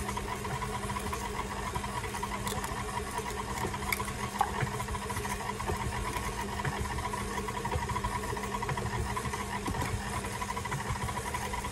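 KitchenAid tilt-head stand mixer running steadily, a constant motor hum as its flat beater turns an egg into cake batter in the stainless steel bowl.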